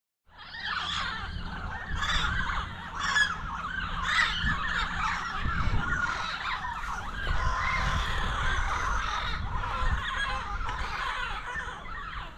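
A flock of yellow-headed parrots (Amazona oratrix) calling together, many loud overlapping calls at once, over a low rumble of wind on the microphone.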